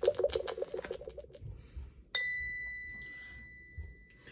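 Electronic lie detector game toy giving a rapid run of short scanning beeps, then a single bell-like ding about two seconds in that rings out and fades over about two seconds, signalling that the answer reads as truth.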